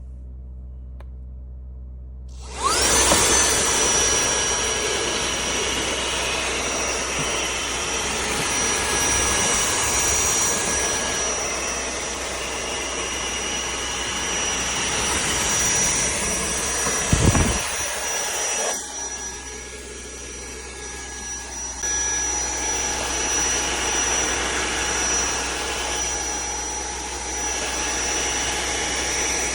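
WADEO 3-in-1 cordless handheld vacuum with a brushless motor switching on about two and a half seconds in. It spins up with a rising whine, then runs steadily with a high whine over the rush of air. A short low thump comes about seventeen seconds in, and the sound drops and goes muffled for a few seconds just after before coming back up.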